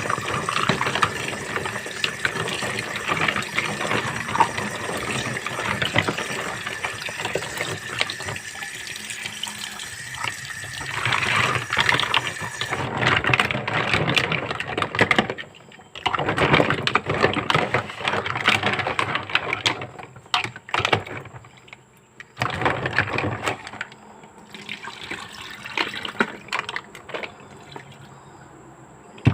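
Kitchen tap running into a sink as ingredients are rinsed. The flow is steady for the first half, then comes in stop-start bursts with short breaks.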